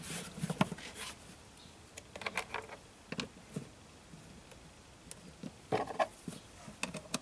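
Hard plastic cover of the BMW E46's engine-bay electronics box being fitted and pressed back on by hand: scattered clicks, taps and plastic rubbing on plastic, with a few sharper clicks around two, three and six seconds in.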